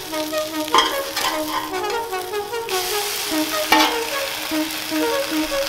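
An omelet sizzles on a Blackstone 28-inch griddle's steel cooktop while a metal spatula scrapes and taps the plate to flip it, with two sharp clicks about a second in and near four seconds. The sizzle grows louder about halfway through. Instrumental background music plays throughout.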